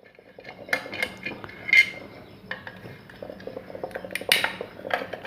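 Metal clinks and knocks from a ceiling fan and tools being handled, irregular, with a brief ringing clink near the middle and the sharpest clink about four seconds in.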